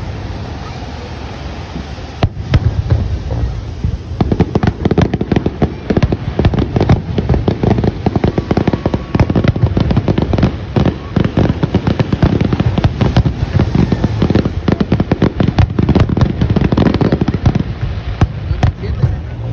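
Fireworks going off: low booms of bursting shells, turning into a dense, rapid crackling and popping from about four seconds in.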